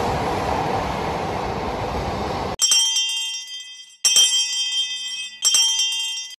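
E6 series shinkansen running past a station platform: a steady rushing noise that cuts off abruptly about two and a half seconds in. Then a bell rings three times, about a second and a half apart, each strike ringing out and fading.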